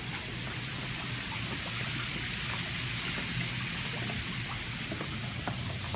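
Ocean waves washing at the shore, a steady hiss of surf with a low rumble underneath.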